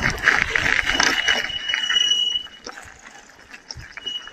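KuKirin V1 Pro electric bike under way, with wind and tyre noise and a steady high whine, all dropping away about two seconds in. The bike then goes on more quietly with scattered light clicks and ticks.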